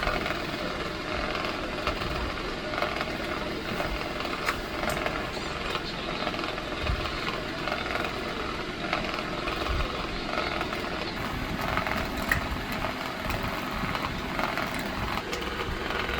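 Electric fan running steadily: a constant whir of moving air over a low motor hum, with a few faint clicks.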